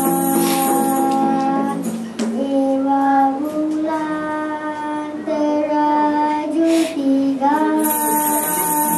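Kindergarten children singing a dikir chant, holding long notes that step up and down in pitch.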